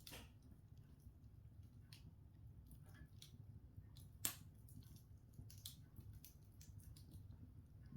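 Open log fire crackling faintly: scattered sharp pops and ticks of burning wood, the loudest a single pop about four seconds in, over a low background rumble.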